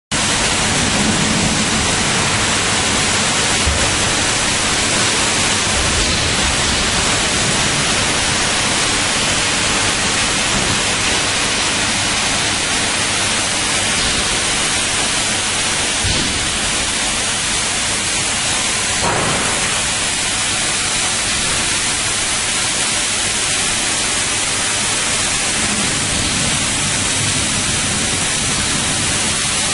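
A steady, loud hiss with no tone or rhythm to it, unchanging throughout.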